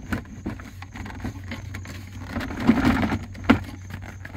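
Plastic center console of a Jeep Commander knocking and scraping against its mounting bracket as it is rocked down into place by hand. There is a louder scraping rustle a little before three seconds in and a sharp click at about three and a half seconds.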